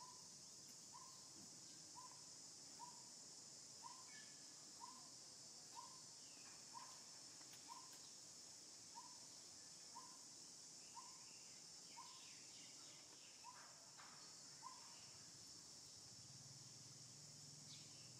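Faint outdoor ambience: a steady high insect drone, with a short, slightly falling call repeated about once a second that stops about fifteen seconds in. A faint low hum comes in near the end.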